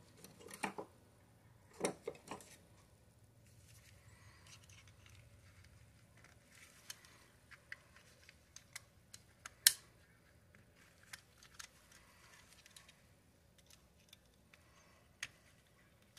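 Faint scattered clicks and light scrapes of a small metal tool working inside the body of an Olympic Penguin 204 spinning reel to free the bearing. A sharper single click about ten seconds in is the loudest.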